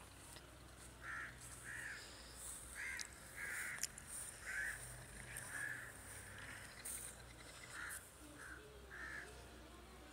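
Crows cawing: a string of short, separate calls, roughly one a second at uneven spacing.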